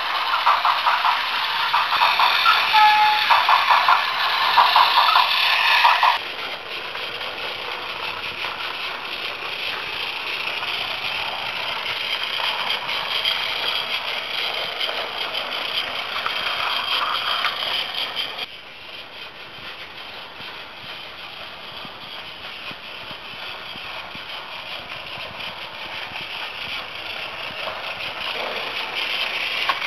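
Battery-powered Plarail toy tram running on plastic track: a steady whir of the small motor and gears with a fast rattle of the wheels. It is loudest for the first six seconds, then abruptly quieter, and quieter again after about eighteen seconds.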